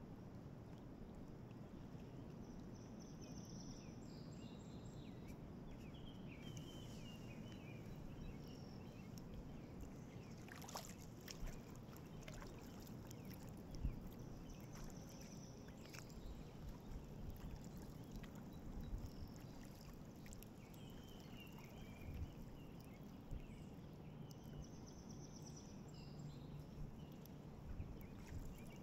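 Kayak paddling on calm river water: the paddle blades dip and pull, with light splashes and drips running off the paddle, and a few sharp clicks.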